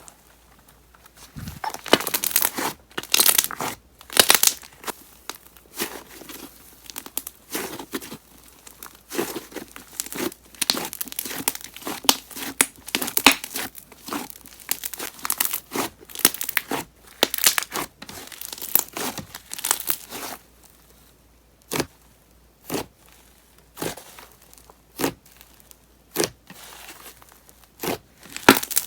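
Thick wood clay slime being worked by hand, its heavy bubbles popping in dense crackling runs. Toward the end the pops come singly, sharp snaps about a second apart.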